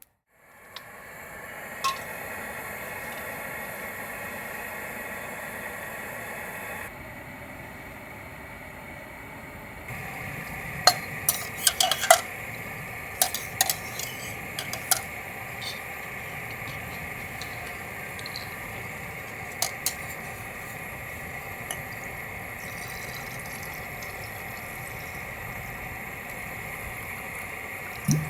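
Metal and glass utensils clinking: a quick run of sharp clinks with brief ringing, then a couple more later, over a steady hiss.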